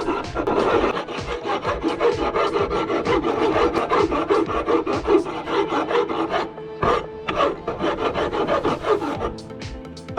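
Hand file rasping across a forged steel hammer head in a quick, steady run of strokes.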